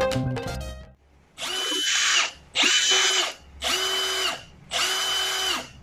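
Milwaukee M18 FIW212 cordless impact wrench run free in four short trigger pulls of just under a second each, the motor whining up to speed and winding down each time. Background music fades out just before the first run.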